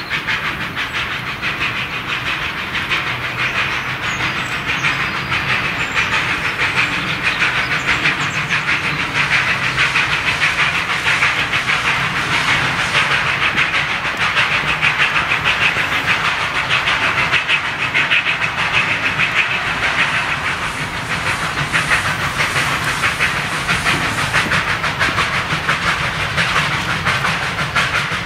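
Narrow-gauge 298-class steam tank locomotive working hard, with a fast, steady rhythm of exhaust chuffs over the hiss of steam and the wheels running on the rails. It passes close by about halfway through.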